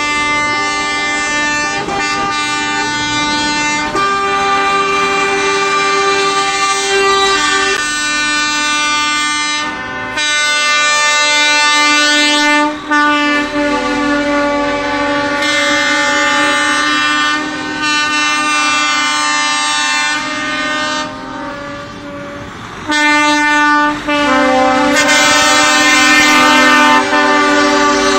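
Lorries in a convoy sounding their air horns: long, overlapping multi-tone blasts that change pitch every few seconds, with short breaks about halfway and again about three-quarters of the way through.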